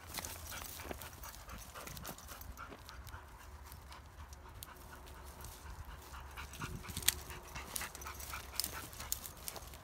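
Kangal dogs panting and scuffling as they jostle in a dominance tussle, paws scraping and patting on the ground, with scattered short clicks and scuffs, the sharpest about seven seconds in.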